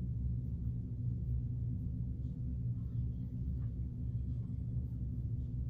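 Steady low hum with a few faint ticks, no speech.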